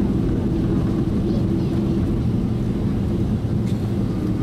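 Cabin noise inside a Boeing 767-300ER on the ground after landing: a steady low rumble from the engines and the rolling airframe, with a faint steady hum.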